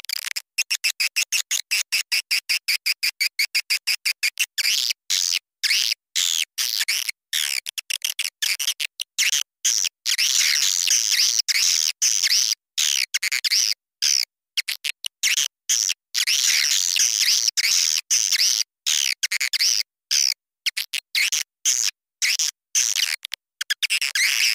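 Swiftlet call recording: swiftlets twittering in high chirps, opening with a rapid, even train of about seven pulses a second for some four seconds, then a busier chatter broken by many sudden short gaps. A 'panggil' (calling) sound, the kind played to lure swiftlets into a nesting house.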